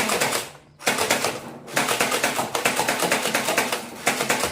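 Toy gun firing in rapid bursts: a fast rattle of clicks, broken by short pauses about a second in and again just under two seconds in.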